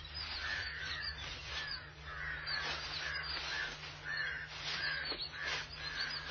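Birds calling, many short cries in quick succession, over a steady low hum.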